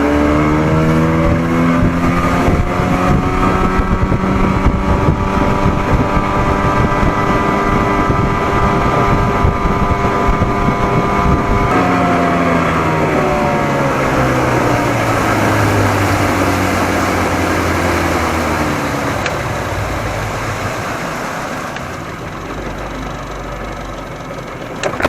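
1987 Johnson 40 hp two-stroke outboard motor pushing the boat: revs climb at the start, hold steady at running speed, then wind down from about halfway until the engine fades under wind and water noise near the end. The motor's timing has just been reset by the Joe Reeves wide-open-throttle method.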